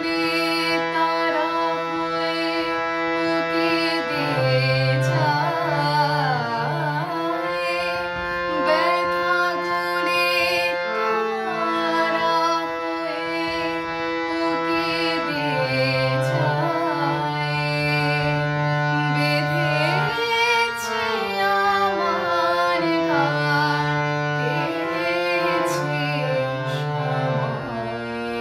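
A woman singing a Bengali song, her voice sliding through ornamented turns, while she accompanies herself on a harmonium whose reedy held notes sustain under the melody.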